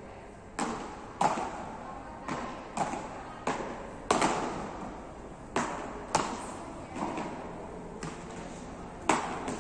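Beach tennis paddles striking the ball in a rally: about a dozen sharp pops at uneven spacing, echoing in a large indoor hall.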